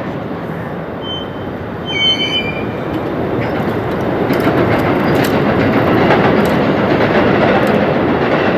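JR West 281 series Haruka limited express train running past a level crossing: a steady rumble of wheels on the rails that grows louder. A brief high wheel squeal comes about one to two seconds in.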